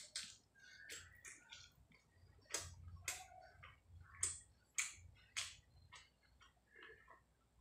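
Close-miked chewing of a mouthful of rice and fish: irregular wet mouth clicks and smacks at an uneven pace.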